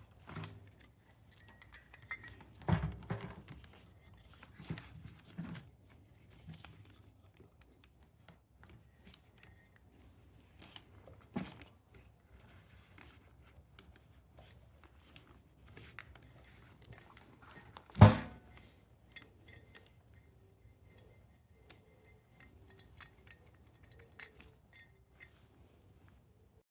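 Work-handling noises: scattered small clicks and clinks, with a few sharper knocks and one loud knock about eighteen seconds in.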